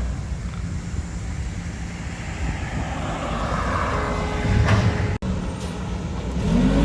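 Mack garbage truck with a McNeilus front-loader body, its diesel engine running steadily. A short hiss comes about two-thirds of the way through, and near the end the engine starts to rev up.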